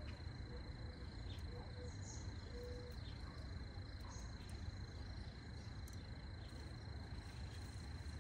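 Steady high-pitched insect chirring, a single unbroken tone, over a low rumble of outdoor background noise, with a few faint clicks of hand pruning shears snipping flower stems.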